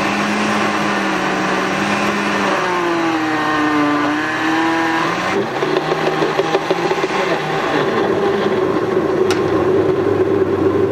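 Countertop blender motor running at high speed, pureeing chopped bell and hot peppers. Its pitch sags and recovers a few times as a wooden spoon pushes the peppers down into the blades.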